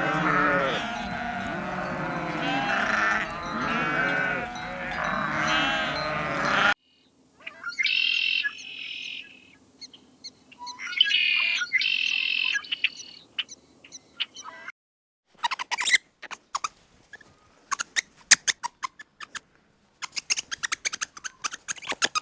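A chorus of overlapping bleating from a flock of livestock, cut off suddenly. Then come two bursts of high, repeated bird calls, and finally a run of sharp, short clicks and chirps with gaps between them.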